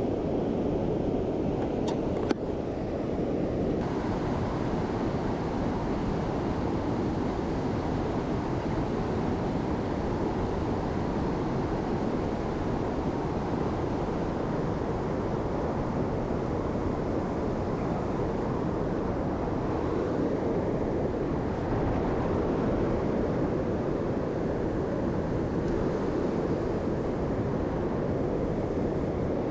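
Mountain stream rushing steadily over rocks, an even water noise with a couple of faint clicks about two seconds in.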